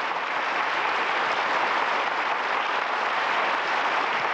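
Studio audience applauding to greet the host after his introduction, a dense, even clapping.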